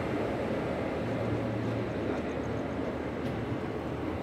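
Steady rumble of a passenger train, an even noise with a low hum under it.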